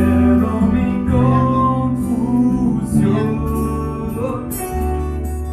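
Live band playing a slow romantic ballad: guitar and bass under sung melody lines, with chord changes about three and four and a half seconds in.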